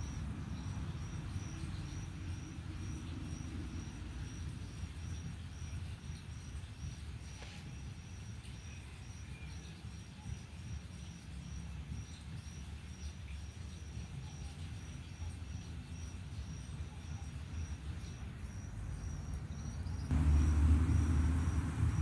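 Steady insect chirping, a high pulse about twice a second, over a low rumble that grows much louder near the end.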